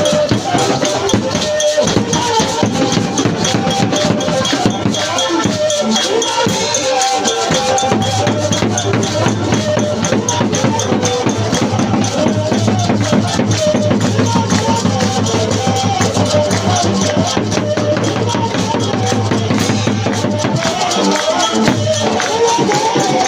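Church praise music with fast, busy percussion of drums and shakers and voices singing over it. A low note is held steadily through the middle.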